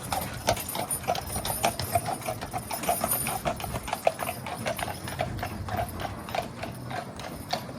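Horse's hooves clip-clopping at a steady walk, an even run of sharp strikes several times a second.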